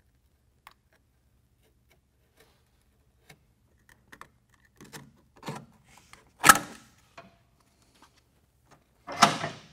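Hand work on a gooseneck hitch's release handle and mounting hardware in a pickup's wheel well: scattered small clicks, a sharp clack about six and a half seconds in, and another short clatter of knocks near the end.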